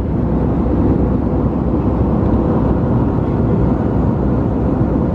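Airbus A320 passenger cabin in flight: a steady, even rush of engine and airflow noise, with a faint steady hum underneath.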